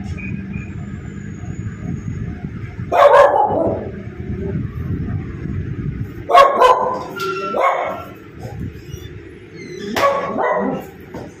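Dog barking: one bark about three seconds in, two more a few seconds later, then a quick pair near the end, over a steady low background rumble.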